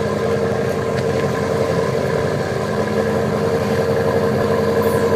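BMW F10 M5's twin-turbo V8 running through an aftermarket exhaust, a steady drone that holds one pitch throughout.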